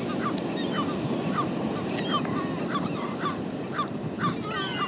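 A flock of seagulls calling, many short squawks overlapping and repeating, with a denser cluster of calls near the end, over a steady background rush.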